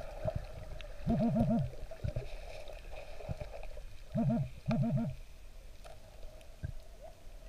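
Handheld underwater pinpointer, swept over the sand, gives three short bursts of a warbling electronic alarm tone as it closes on a buried metal target. Low water rumble and scattered knocks from the hand stirring the sand lie underneath.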